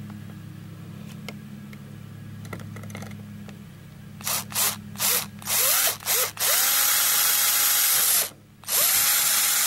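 Small cordless drill with a long twist bit drilling a hole through a PVC handrail bracket. About four seconds in come a few short trigger blips, then two steady runs of about two seconds each, the motor whine rising as each starts and falling as it stops.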